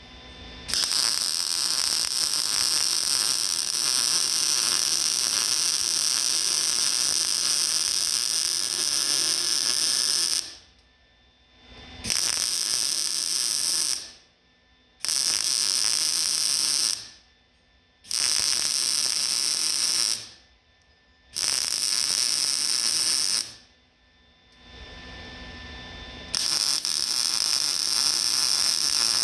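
MIG welder arc crackling and buzzing as wire-feed welds are laid around a patch plate in a steel truck frame. One long run of about ten seconds, then four short runs of about two seconds each with brief pauses between, then a steady run again near the end.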